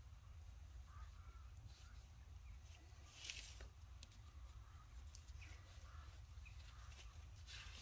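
Near silence: faint outdoor background with a low steady rumble and a few brief rustles, one about three seconds in and one near the end.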